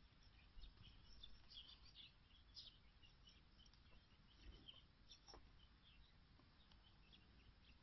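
Near silence, with many faint short bird chirps scattered throughout over a low background rumble.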